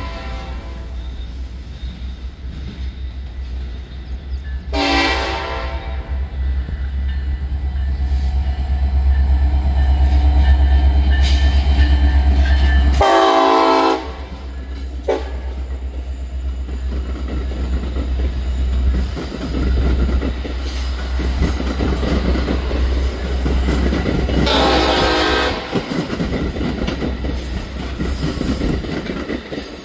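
A Metra commuter train of bilevel coaches passes close by with a heavy low rumble and wheel clatter. A train horn sounds three times: a short blast about five seconds in, the loudest near the middle, and another a few seconds before the end. The deep rumble drops away suddenly just after the middle blast.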